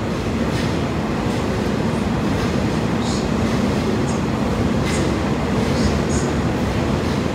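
A train passing through the station platform without stopping: a steady, loud rumble of wheels on rail with scattered sharp clicks.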